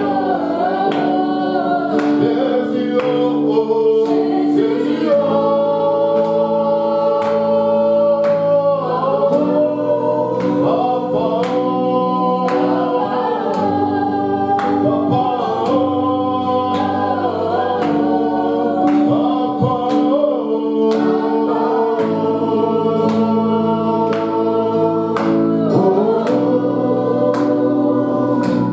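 A choir singing a slow gospel worship song over long held instrumental chords, with a light percussive tick about once a second.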